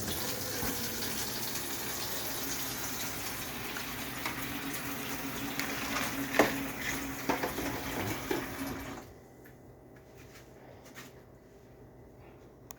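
Kitchen tap running water into a sink for about nine seconds, with a few knocks, then shut off.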